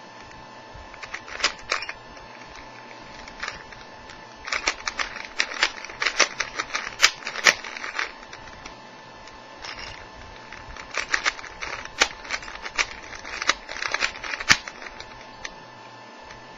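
Plastic layers of a new, stiff 3x3 Rubik's Cube being twisted by hand. The clicks and clacks come in three quick runs of turns with pauses of a couple of seconds between them.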